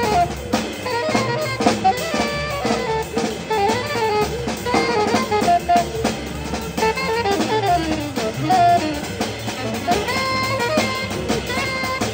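Live jazz quartet: alto saxophone playing a moving melodic line over piano, upright double bass and drum kit, with frequent cymbal strokes.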